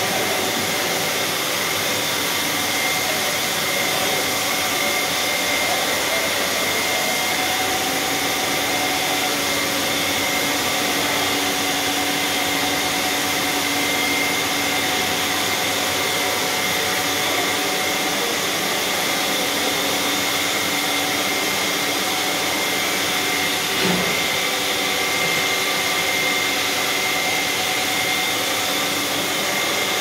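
Commercial stainless dishwashing machine running: a steady whir and hiss with a few steady tones, and a single knock about 24 seconds in.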